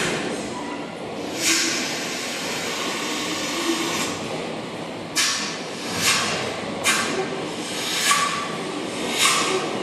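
Electroacoustic music for clarinet and tape played over loudspeakers: a steady airy, noisy texture with short hissing swells, a few at first and then about one a second from about five seconds in, with faint low tones underneath.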